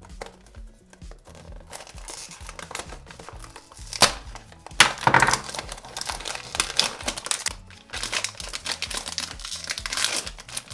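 A cardboard blind-box carton being torn open, with a sharp rip about four seconds in, followed by the loud, dense crinkling and tearing of the foil blind bag inside as it is handled and opened.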